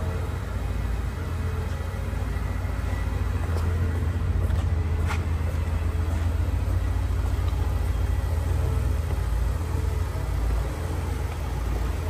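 Low, steady rumble of a 1960 Oldsmobile Super 88's fuel-injected 394 V8 idling. A single short click about five seconds in.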